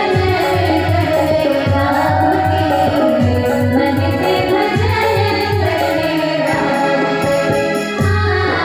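Singing with musical accompaniment over a steady, low, repeating drum beat.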